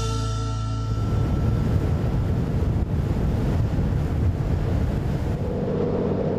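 Music fades out about a second in, giving way to wind buffeting the microphone over a boat's low engine rumble and the wash of water at sea.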